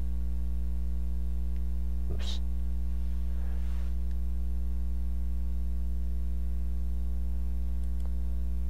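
Steady electrical mains hum with a stack of evenly spaced overtones, unchanging in level. A brief faint noise comes about two seconds in.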